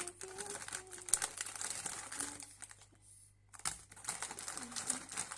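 Crunching of Mikado chocolate biscuit sticks being bitten and chewed close to the microphone: irregular crisp clicks and crackles, with a short lull past the middle.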